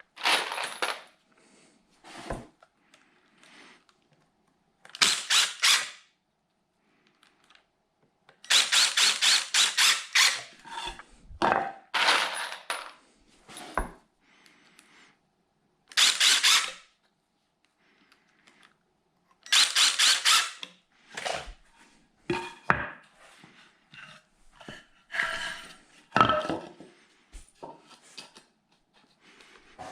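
Hand-tool work on wood: several short bursts of rapid rasping strokes a few seconds apart, the longest about a third of the way in, with knocks and clatter between them.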